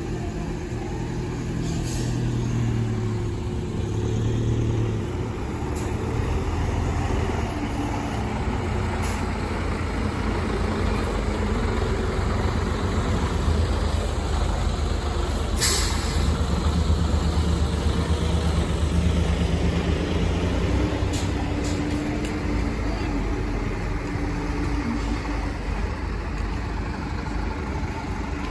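Fire engines and large fire-rescue trucks driving slowly past in a column, their diesel engines running with a steady low rumble and tyre noise. A few short, sharp hisses of air brakes cut in, the loudest about halfway through.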